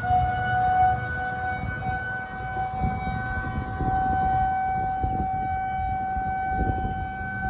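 Town alarm siren sounding its weekly Saturday-noon run: one long, steady wail that rises slightly in pitch over the first few seconds and then holds.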